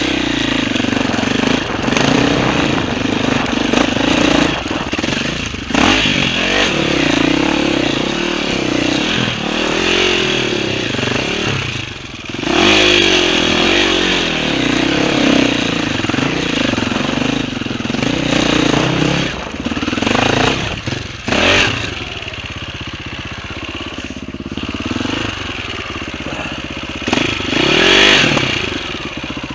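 KTM off-road motorcycle engine revving up and down as the bike climbs a rocky trail, with stones clattering and the bike knocking over rocks.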